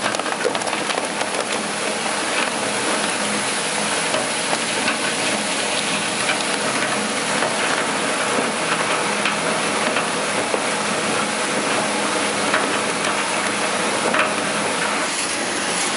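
LHS600 single-shaft shredder's rotor tearing up scrap pieces in its hopper: a loud, steady, dense crackling and rattling with scattered sharper clicks.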